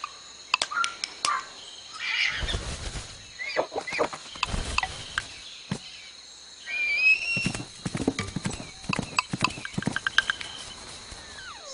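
Hoof taps clip-clopping in short runs, sound effects for a folded-paper hoofed animal, with a brief horse-like whinny about seven seconds in.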